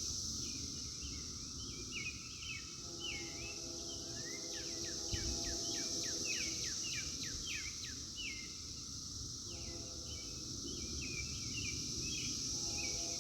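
Cicadas buzzing steadily at a high pitch, with songbirds chirping over them. Faint low tones come and go twice, the horn of a distant approaching freight train.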